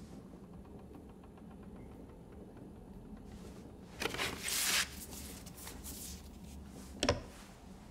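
Faint room tone, with a short papery rustle about four seconds in as a cardboard record sleeve is handled, and a single sharp click near the end.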